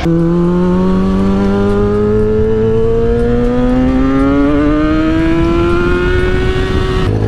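Sport motorcycle engine pulling steadily up through the revs as the bike accelerates along the road. The engine note climbs slowly and evenly in one long rise, then drops off just before the end.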